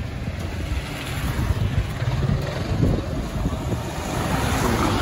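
Street traffic with wind blowing on the microphone: a steady rushing noise with a low rumble.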